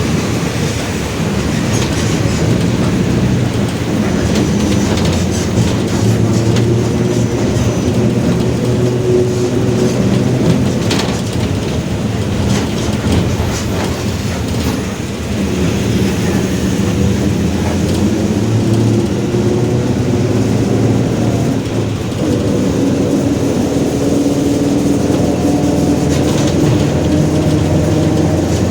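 Mercedes-Benz OF-1721 Bluetec 5 bus drivetrain heard from inside the cabin: the diesel engine runs under way, its note rising and falling with speed and stepping up about two-thirds of the way through. A droning growl from the differential, with scattered rattles and clicks from the bodywork.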